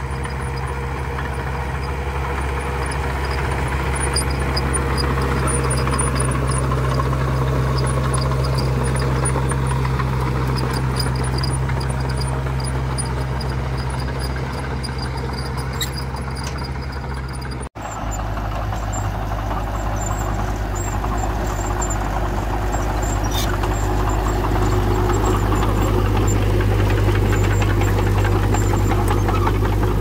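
Small crawler bulldozer's diesel engine running steadily under load as it pushes dirt. The engine note changes abruptly about two-thirds through, where a different, closer view of the dozer begins.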